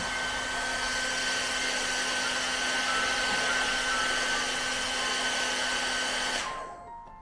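Panasonic hair dryer running steadily on its heat setting, a rush of air with a thin steady whine, blowing on a phone's camera glass to loosen it. It stops abruptly about six seconds in.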